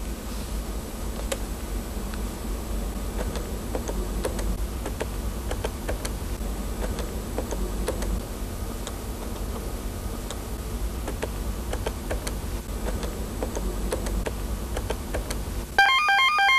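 Steady low hum with scattered faint clicks from a push-button desk telephone's handset and keypad being handled as a number is dialled. In the last second an electronic telephone ringer trills loudly in a rapid warbling pattern of several alternating tones.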